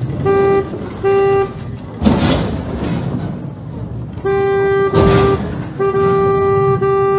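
A car horn sounding two short beeps, then long held blasts, while two loud crashes of vehicles colliding come about two seconds in and about five seconds in.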